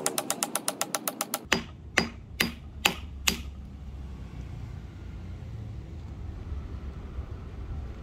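Hand-tool work on the wooden wedges of an axe: a quick run of light clicks, about ten a second, then five louder sharp knocks about half a second apart. A steady low rumble follows.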